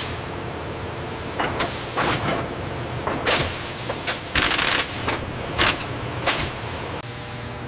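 Sawmill machinery running with a steady hum, with five or six short, sharp hisses in the middle seconds, the longest about half a second.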